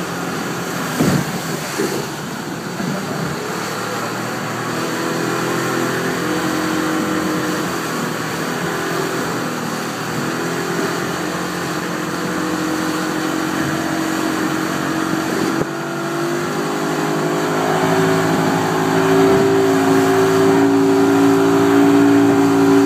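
Speedboat's outboard motor running at speed over the rush of the wake and spray. The engine note grows louder from about two-thirds of the way through.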